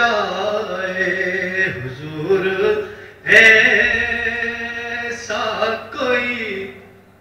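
A solo male voice sings a naat, an Islamic devotional poem in praise of the Prophet, into a microphone. He holds long notes with sliding ornaments and breaks off briefly about three seconds in.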